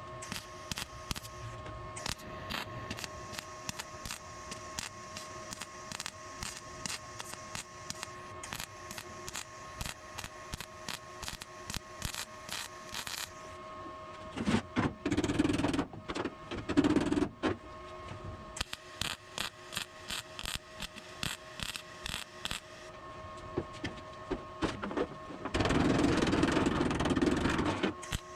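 Sheet-metal bodywork on a car body: a rapid, regular run of sharp taps or clicks, broken by two louder stretches of rushing noise, one about halfway through and one near the end.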